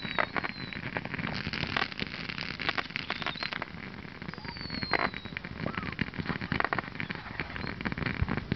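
Ground fountain firework spraying sparks: a dense, continuous crackle of many small sharp pops, with a brief falling whistle at the start and another about four and a half seconds in.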